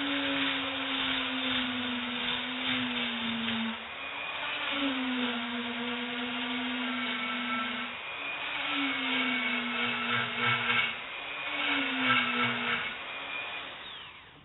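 A small electric power tool running in four bursts of one to a few seconds, its motor pitch dipping briefly as each burst begins, with a gritty grinding noise over it as it works a part down to fit.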